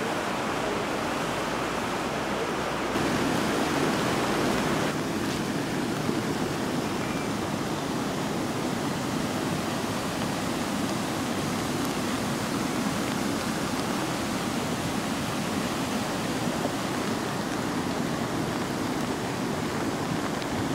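Muddy floodwater rushing: a rain-swollen torrent running fast over rocks and broken concrete, a steady rushing noise that is a little louder a few seconds in.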